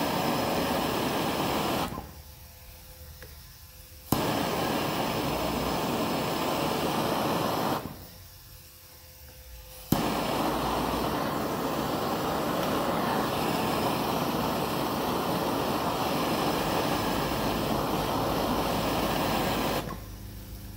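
Handheld gas torch flame burning with a steady hiss while it heats a shrink-fit tool holder. The flame is shut off twice for about two seconds each time, and each relight starts with a sharp click. It goes out about a second before the end.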